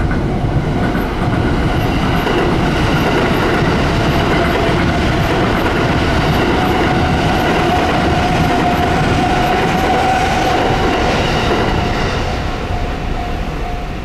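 A JR West limited express electric train passes close by, its wheels rumbling and clattering on the rails, loud and steady, then fading near the end. Under it a level-crossing warning bell rings throughout in a steady repeating tone.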